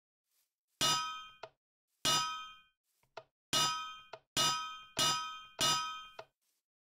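A struck metal object clanging six times at uneven intervals, each strike ringing for about half a second, several followed by a small light click.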